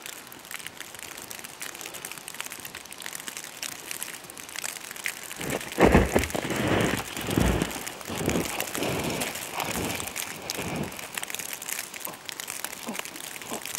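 Steady crackling and rustling from a plastic sheet covering the camera's microphone against the snow. From about five seconds in, several seconds of heavier crunching thumps: footsteps in deep snow passing close by.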